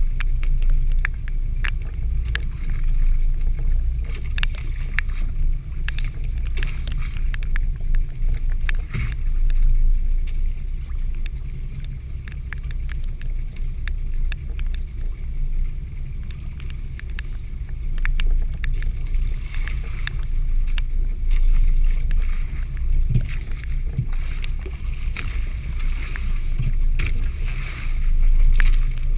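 Steady, uneven low rumble aboard a small fishing boat at sea, with many scattered ticks and taps over it.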